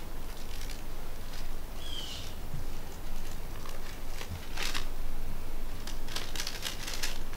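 Paper rustling as an envelope is opened and the bills inside are handled, in short bursts in the second half. A bird gives one short falling chirp about two seconds in, over a steady outdoor hiss.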